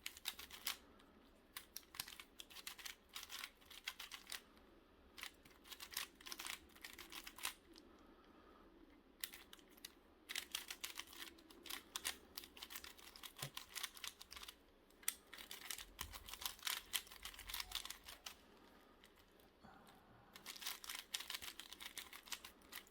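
A 4x4 Rubik's cube being twisted by hand: quick runs of faint plastic clicks as the layers turn, in bursts with short pauses between.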